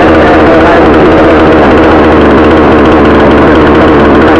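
62cc two-stroke chainsaw idling steadily while it warms up, very loud and close, its pitch wavering slightly.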